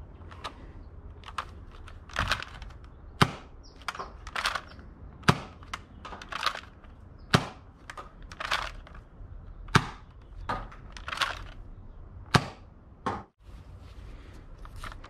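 Nerf Zombie Strike Hammershot foam-dart blaster fired five times, about every two to two and a half seconds. Each shot is a sharp snap of the spring plunger, about a second after the rasp of the hammer being pulled back to prime it.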